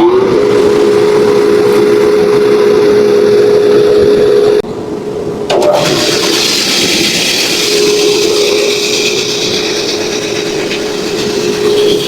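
Bandsaw running at speed with a steady, even hum. About five seconds in the sound dips briefly, then comes back with added hiss as the blade cuts through wood.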